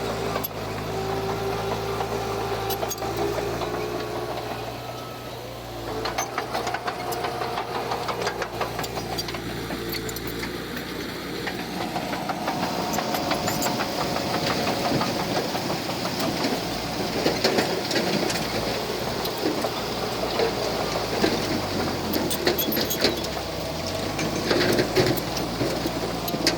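Diesel engine of heavy earthmoving machinery running, its note shifting now and then. Dense rattling and clanking join in from about six seconds in.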